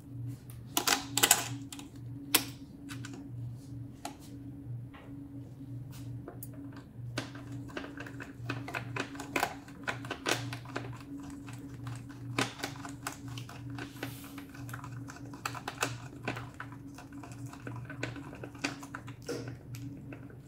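Irregular small clicks and light knocks of gloved hands handling cable connectors and parts inside an open SLE 5000 infant ventilator's metal chassis, over a steady low hum.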